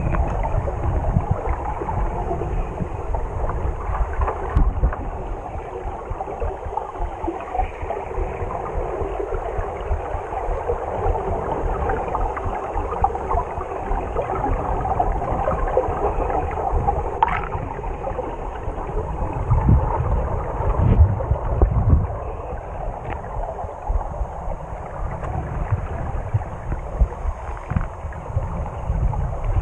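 Muffled underwater water noise picked up through an action camera's waterproof housing: steady gurgling and sloshing with low rumbles, louder about twenty seconds in.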